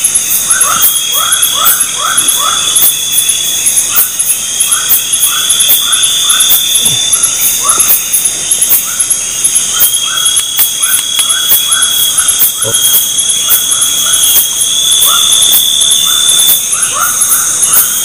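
Loud night chorus of crickets and other insects: a dense, fast high pulsing with a steadier trill beneath it, over runs of short rising chirps repeated every few tenths of a second.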